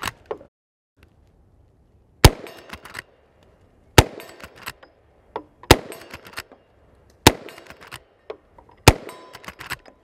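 Henry Big Boy Steel lever-action carbine in .45 Long Colt fired five times, about one and a half seconds apart. Each shot is followed by the metallic clack of the lever being cycled to chamber the next round.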